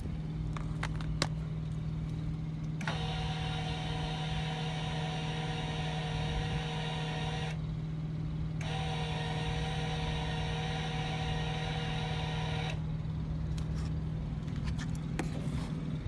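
Travel trailer's electric tongue jack motor whining as it raises the trailer's nose for levelling. It runs about five seconds, stops for about a second, then runs about four seconds more, over a steady low hum.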